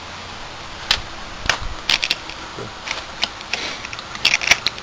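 Irregular sharp clicks and light metallic clinks of small parts handled by hand: the pistons and cylinder block of a Tuff Torq K66 hydrostatic motor kit. Several clicks come in quick succession near the end.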